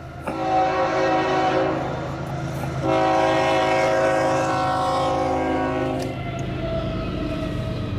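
Locomotive air horn with several chime tones sounding two blasts, a shorter one of about a second and a half, then a longer one of about three seconds, over the low rumble of the approaching train.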